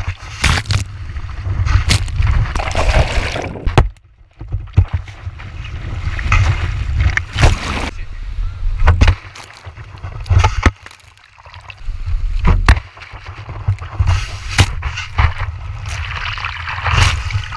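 Skimboard sliding through shallow beach wash, heard from a camera mounted on the board: water splashing and rushing over the deck with a deep rumble on the housing, and sharp knocks as the rider's feet and hands hit the board. It comes in several surges with short quieter gaps between.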